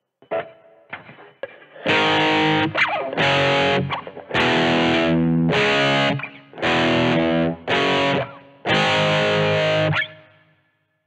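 Distorted Ibanez electric guitar playing power chords in short strummed bursts, about five chords of a second or so each, each cut short by muting, after a few light picked notes at the start. The last chord rings out and fades near the end.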